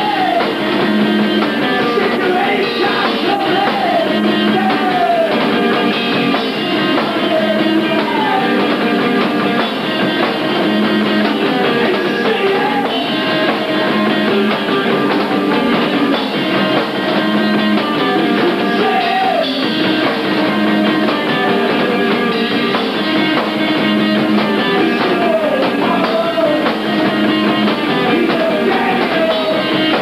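Post-hardcore band playing live: distorted electric guitars and drums with shouted vocals. It is a lo-fi live recording, thin, with little bass and dull highs.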